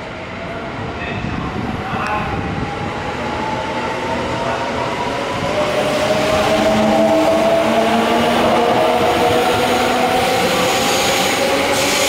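JR West Thunderbird limited express electric train pulling out and accelerating. Its traction motors whine with a tone that rises steadily in pitch. The rumble of wheels on rail grows louder as the cars pass close by.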